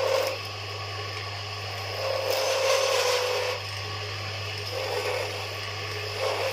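Wood lathe running with a steady low hum while a turning chisel cuts into the spinning wooden spindle in several scraping passes, the longest from about two to three and a half seconds in, with shorter cuts near the end.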